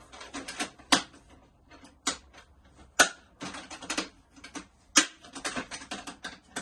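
Hard plastic clicks and clatter from a plastic toolbox organizer being handled and its catches and parts worked: sharp clicks about once a second, with quicker smaller clicks between.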